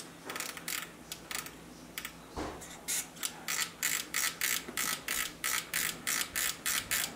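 Rapid, regular clicking, about three to four clicks a second, as the potentiometer shafts of a Marantz 2226 receiver are worked back and forth to spread freshly sprayed DeOxit F5 cleaner onto their carbon tracks. The clicking starts sparse and turns steady about three seconds in, with one duller thud before it.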